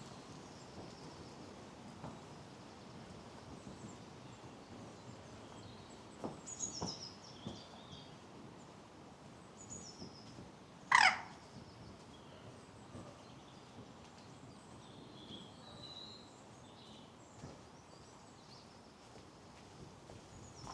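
Wild birds calling in scattered faint high chirps over a steady outdoor background hiss. About halfway through, one louder, quick call sweeps steeply down in pitch.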